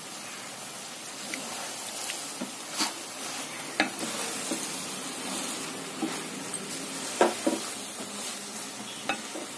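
Grated carrot and sugar mixture sizzling in a kadhai as a spatula stirs through it. A few short scrapes and clicks of the spatula against the pan come through the steady hiss.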